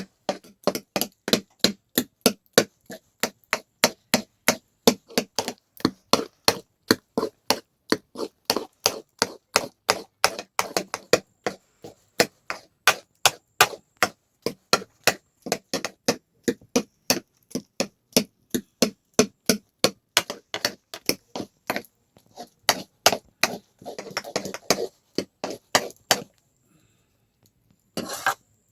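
A long, steady series of sharp chopping or striking blows, about three a second, that stops near the end.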